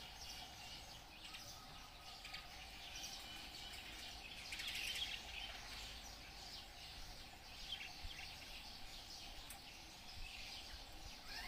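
Quiet outdoor ambience with faint, scattered bird chirps over a low, steady background hum.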